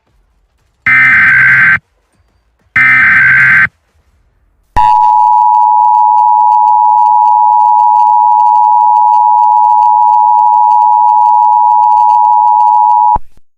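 Two roughly one-second bursts of Emergency Alert System SAME header data, a harsh buzzy digital warble, then after a short pause the EAS two-tone attention signal (853 and 960 Hz) sounding steadily for about eight seconds before cutting off abruptly near the end. Together they signal the start of a new emergency alert broadcast.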